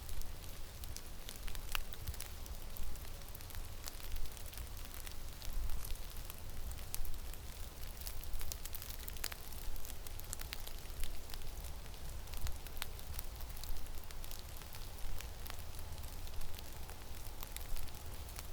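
Snowstorm in a forest: a low wind rumble with a constant hiss and many fine, irregular ticks of snow grains hitting.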